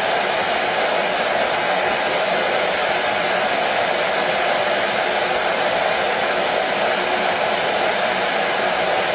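Washing machine running: a steady, even noise with no rhythm or change.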